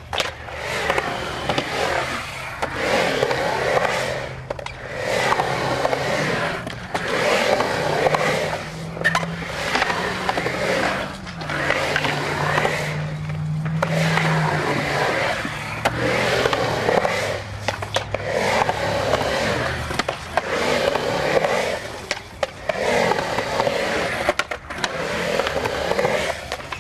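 Skateboard wheels rolling on the concrete of a skate bowl, swelling and fading every second or two as the rider carves up and down the walls. A faint low hum runs underneath.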